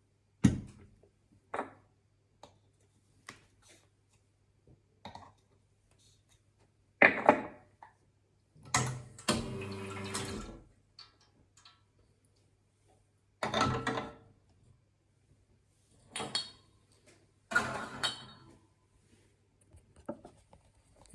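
Espresso portafilter and tools being handled: scattered metal clicks and knocks, with sharp clunks about half a second in and at several points later, and a rattling noise lasting about two seconds near the middle. A faint low hum runs underneath.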